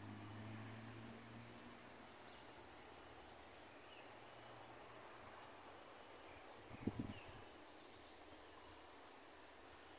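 Steady high-pitched insect chorus, with a faint low hum fading out in the first couple of seconds and two brief low thumps close together about seven seconds in.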